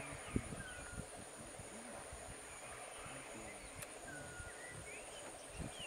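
Marsh ambience: a steady high-pitched insect drone with scattered short bird chirps, over irregular soft low knocks.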